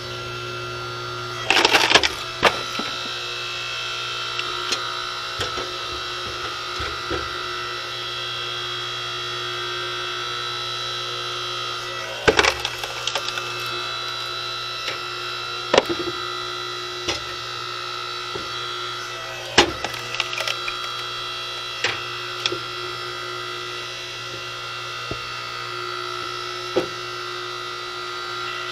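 A DR 5-ton electric log splitter's motor and hydraulic pump hum steadily while the ram forces a large round onto the wedge. The wood gives loud cracks and splintering as it tears apart, loudest about two seconds in and again around twelve, sixteen and twenty seconds in. The round is green, unseasoned wood, which tears rather than popping apart cleanly.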